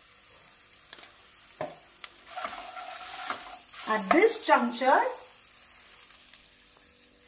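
Spices frying in hot ghee in a nonstick kadai, with a faint sizzle and a wooden spatula stirring, and a couple of light clicks about a second in. From about two and a half to five seconds in, a louder pitched sound like a voice rises and falls over it.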